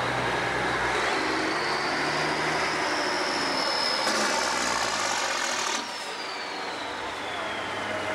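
Heavy truck driving past, a steady engine and tyre noise that drops away sharply about six seconds in as it moves off. A thin high whine slides down in pitch through the second half.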